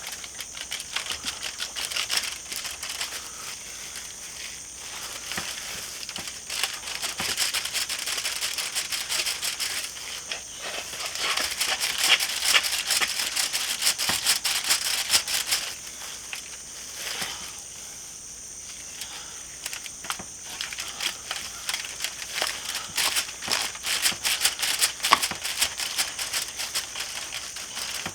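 Knife cutting away the hard fat cap of a raw pork butt: dense, crackling, crunching slices in irregular runs, louder in the middle and again near the end, over a steady high hiss.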